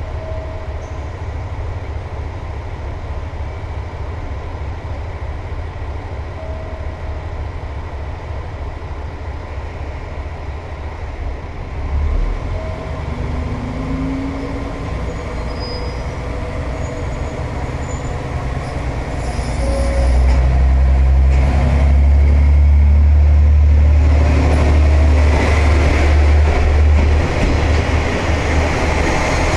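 KiHa 47 diesel railcars idling at the platform with a steady low diesel rumble. About two-thirds of the way in, the engines rev up and get much louder as the train pulls away, and near the end the cars roll past close by with wheel and rail noise.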